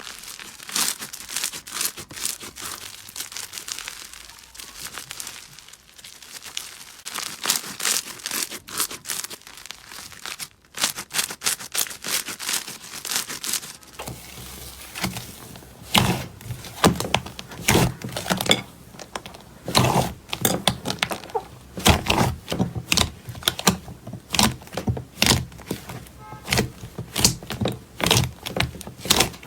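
Slime being pressed, poked and stretched by hand, giving a dense run of crackling clicks and small pops. About halfway through, the sound changes to louder, deeper squishy thuds mixed with the clicks.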